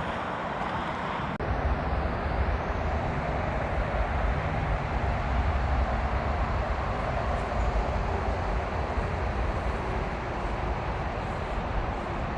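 Motorway traffic noise: a steady rumble and hiss of vehicles on the road. It dips briefly about a second and a half in, then runs on a little louder.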